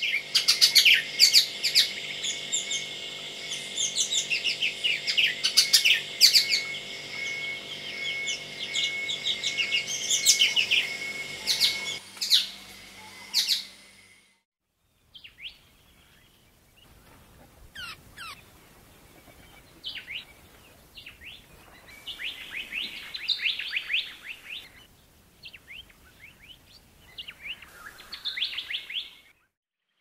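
White-cheeked honeyeater chirping, a dense run of loud, quick chirps and whistled notes over a low steady hum that stops about twelve seconds in. After a short break, a white-plumed honeyeater gives fainter, scattered chirps and short trills.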